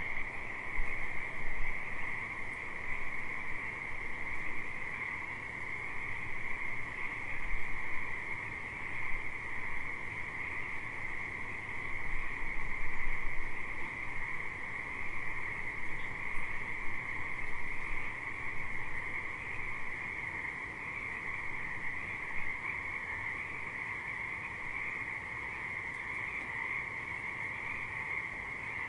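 Chorus of many frogs calling together, a continuous high-pitched din with no breaks.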